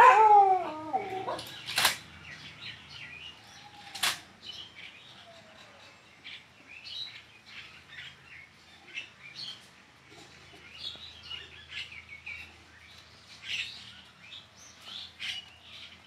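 A loud animal cry falling in pitch opens the sound, followed by two sharp claps about two and four seconds in. Small birds chirp on and off throughout.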